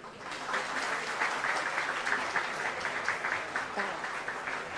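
Audience applauding: many hands clapping, building up within the first second and then holding steady, easing slightly near the end.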